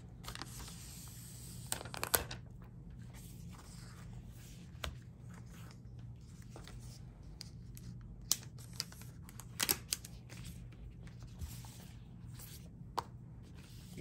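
Paper protective wrap being torn open and pulled off a new iPad Pro, rustling and tearing for about the first two seconds. Then comes a scattering of light clicks and taps as the bare tablet is handled on the table.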